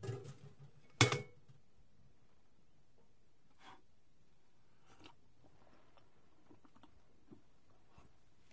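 Crockery being handled in a small quiet room: a sharp knock at the very start and a louder clink about a second in with a brief ring, then a few faint soft handling sounds.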